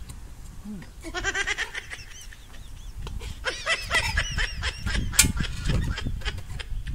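Animal calls: a high, wavering cry in two bouts, a short one about a second in and a longer one from about three seconds. A single sharp clink of a metal spoon on the wok comes a little after five seconds.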